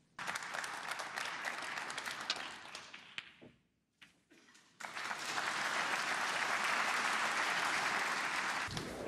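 Snooker audience applauding in two bursts: the first starts abruptly and dies away after about three seconds, then after a short gap a louder, steadier round of applause begins about five seconds in.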